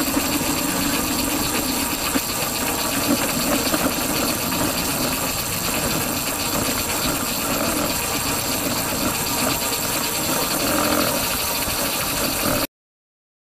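Small experimental vehicle running under way, heard from on board: a steady mechanical drone mixed with noise. It cuts off suddenly near the end.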